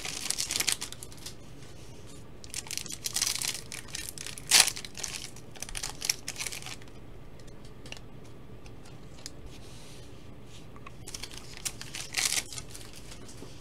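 Foil trading-card packs being torn open and their wrappers crinkling, in irregular rustling bursts, with a quieter stretch in the middle and a few more bursts near the end.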